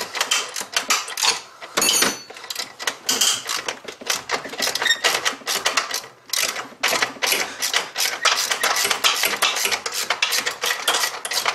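Ratchet wrench clicking in rapid, uneven runs as a socket backs out the heat-shield bolts over the exhaust crossover pipe, with metal tools clinking now and then.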